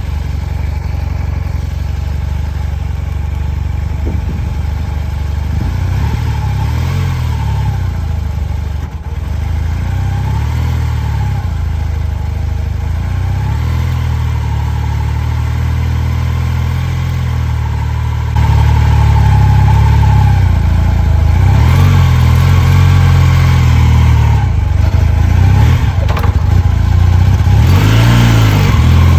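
Honda CB450T Hawk's parallel-twin engine idling and being blipped up in short revs every few seconds, with wind buffeting the microphone. It gets louder about two-thirds of the way in.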